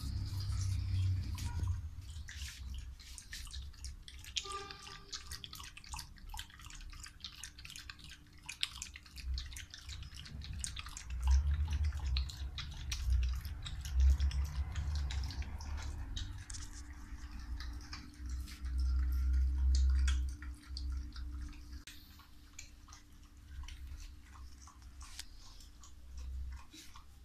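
Australian Kelpie lapping milk from a bowl: a steady run of quick, wet tongue clicks and slurps. A few stretches of low rumble come and go among them.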